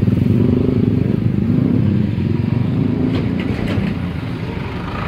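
Motorcycle and scooter engines running close by in slow traffic. The sound eases off gradually after about two seconds, with a few short clicks about three seconds in.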